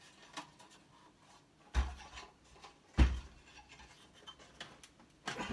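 An electronics unit's housing and circuit board being handled and turned over on a workbench while someone tries to free a stuck board. There are light clicks and rubbing, two heavier knocks about two and three seconds in (the second is the loudest), and another cluster of knocks near the end.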